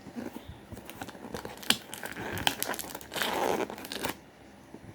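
Parcel packaging being handled and opened: crinkling and tearing with a few sharp clicks, loudest in a longer rustling stretch about three seconds in.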